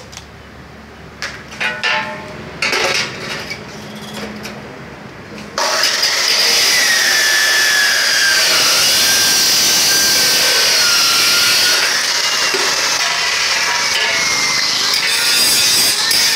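A few clanks and knocks of metal bar being handled. About five and a half seconds in, an abrasive cut-off saw starts cutting into stainless steel stock with a loud, continuous grinding and a wavering whine.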